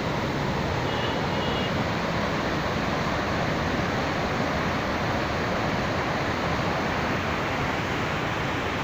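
Flowing water rushing steadily and evenly.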